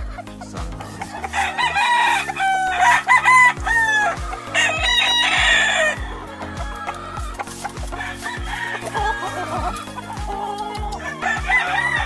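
Gamefowl roosters crowing, several long crows in the first half and another near the end, with some clucking, over background music with a steady beat.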